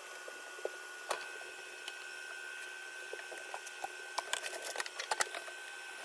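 Combination microwave oven running: a quiet steady hum and hiss with a thin high whine, and scattered light clicks and ticks that come thicker about four to five seconds in.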